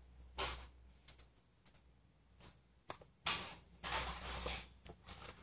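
Faint scattered ticks and a few short rustles from cat treats being dropped onto brick paving and picked up by kittens.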